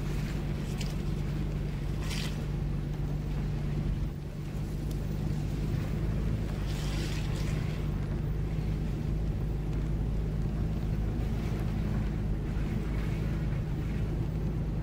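2011 Toyota Tacoma TRD 4x4 crawling over a rough dirt trail: a steady low engine hum and tyre rumble, with wind on the microphone and a few brief rattles and knocks from the bumps.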